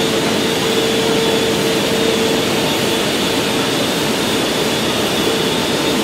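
Steady industrial roar of a steel melt shop during hot-metal charging of an open hearth furnace, with a steady mid-pitched hum running through it.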